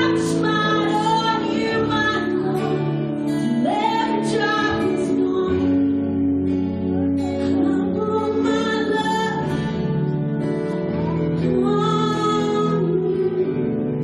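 Live church worship band playing a song, with singing over strummed guitars.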